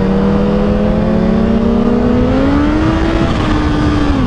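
Kawasaki Ninja H2's supercharged inline-four engine pulling in gear, its pitch rising gradually for about three seconds, then levelling off and dropping slightly near the end. Steady wind noise runs underneath.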